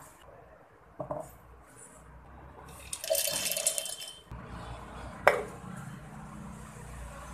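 Roasted chickpeas and grated coconut poured from a steel plate into a steel mixer-grinder jar, the dry chickpeas rattling against the metal for about a second. A single sharp click follows about five seconds in.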